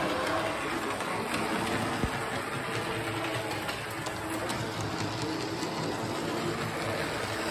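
Model electric trolley running on its track, a steady motor hum with wheel rumble and faint clicking over the rails.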